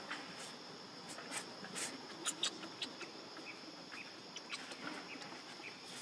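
Steady high-pitched drone of crickets or cicadas in the forest, with scattered short clicks and crackles, the loudest about two and a half seconds in.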